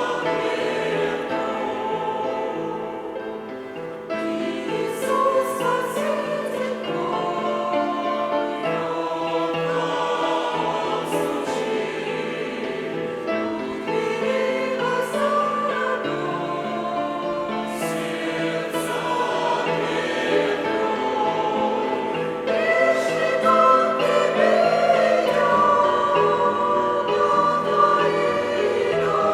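Church choir singing a hymn, voices sustaining long held notes in harmony.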